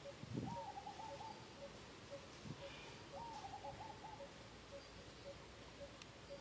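Animal calls: a steady single-note call repeating about twice a second, and twice a short run of quick hooting notes above it. There is a soft low thump near the start.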